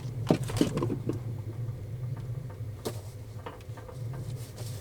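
A steady low hum with a few light clicks and knocks, one about a third of a second in, a couple just after, and one near three seconds in.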